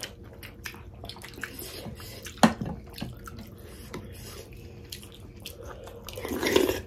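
Wet chewing and mouth sounds of people eating pork momo dumplings, with many small smacks and ticks. There is a single sharp click a little over two seconds in, and near the end a loud slurp of jhol soup from a spoon.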